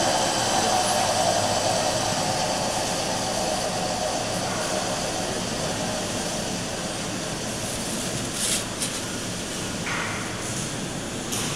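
Wire-cutting CNC foam cutter running: a steady whirring hiss with a motor whine that falls slightly and fades over the first few seconds. A few short scraping squeaks come in the second half as the cut polystyrene foam piece is worked free of the block.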